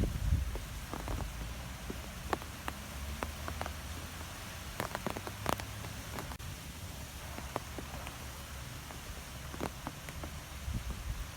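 Wind blowing through trees: a steady rush with a low rumble, scattered with many sharp ticks and patters.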